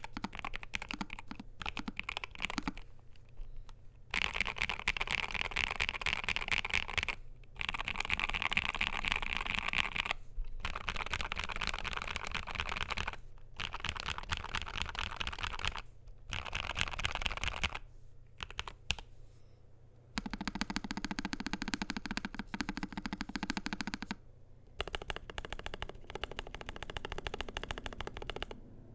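Continuous typing on a NuPhy Air75 V2 low-profile mechanical keyboard with NuPhy Cowberry switches, an aluminium plate and low-profile PBT keycaps: rapid key clicks in runs of a few seconds, with short pauses between them.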